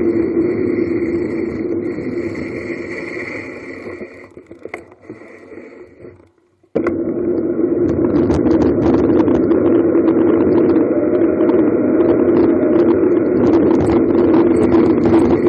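Wind rushing over the microphone of a camera on a bicycle speeding downhill, a steady loud roar of air. It fades away over about six seconds, drops almost silent, then cuts back in suddenly at full strength.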